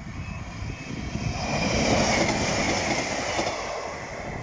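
A two-car Class 156 diesel multiple unit passes at speed, its engine and wheel-on-rail noise rising to a peak about two seconds in and then fading. The level crossing's warning alarm repeats about twice a second and stops about half a second in.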